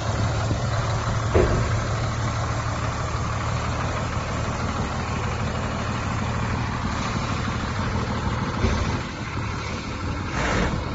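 Sinotruk HOWO 375 tipper truck's diesel engine idling steadily, with a brief knock about a second and a half in.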